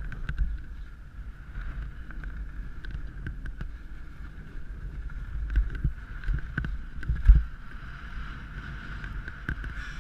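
Wind buffeting an action-camera microphone, a gusty low rumble, with the crunch and scrape of skis and poles on wind-crusted snow as the skier shuffles along. A couple of louder knocks come a little past the middle.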